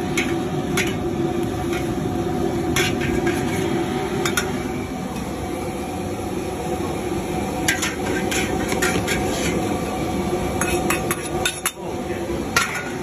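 Long-handled steel wok spatula and ladle clanking and scraping against the wok and a serving plate as noodles are tossed and plated: sharp metal clanks, scattered at first, then coming in quicker runs in the second half. Under them is a steady rush, likely the gas wok burner.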